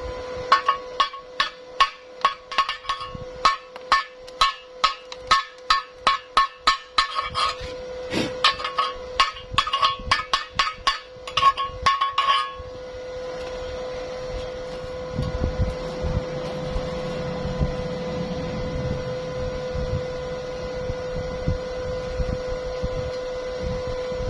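A hammer striking metal, quick ringing blows about two or three a second, which stop about halfway through. A steady hum with a low rumbling noise follows.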